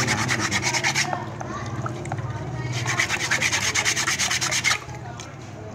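Wet abrasive grit scrubbed by hand over an etched copper sign plate in fast back-and-forth strokes, polishing the etched image. The scrubbing comes in two quick spells, about a second at the start and about two seconds in the middle, with slower, quieter rubbing between and after.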